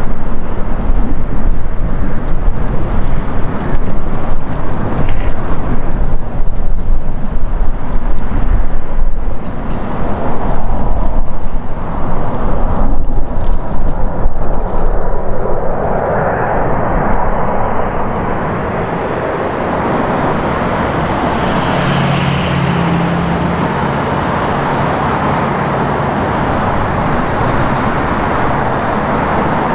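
Jet roar of an Air France Airbus A380's four Engine Alliance GP7200 turbofans as the airliner passes low overhead on final approach. In the first half, gusty wind buffets the microphone over the rumble. From about halfway through, the roar becomes a steadier, fuller rush, with a brief engine hum and high whine a few seconds later.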